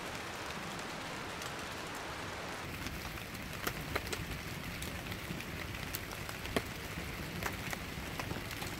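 Wood-and-paper campfire in a steel fire ring, crackling with sharp pops from about three seconds in, over a steady hiss.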